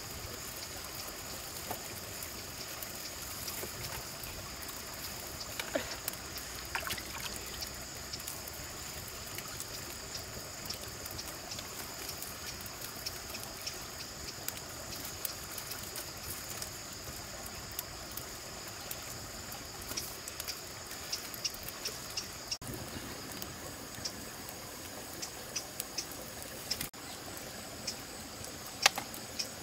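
Stream water trickling steadily, with scattered small splashes and clicks throughout and a sharper one near the end.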